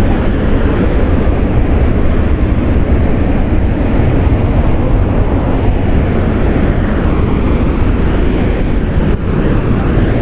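Loud, steady rush of water from the Nabuyole (Webuye) waterfall, with a heavy low rumble.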